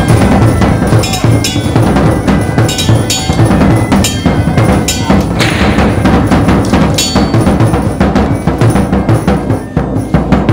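Loud background music driven by heavy drums and percussion, with sharp hits throughout.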